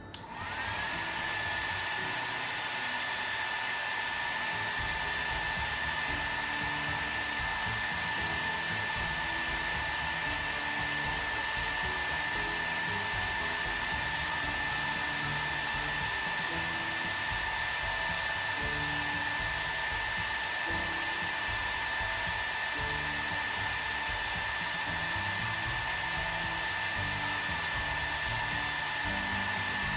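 Electric ventilation fan switching on: a whine rises in pitch over the first second, then it runs steadily with an even airflow rush.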